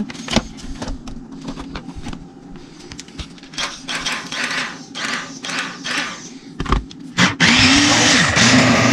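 Handling clicks and rustling. About seven seconds in, an electric food chopper's motor starts, rises in pitch, drops off briefly, then starts again and runs steadily and loudly.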